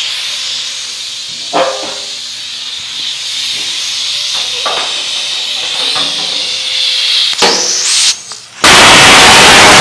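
Pneumatic planishing hammer working a 1932 Ford sheet-steel fender. A steady air hiss and a few clunks of the fender being set between the dies come first. About three-quarters of the way in the hammer starts, a sudden, very loud, dense hammering.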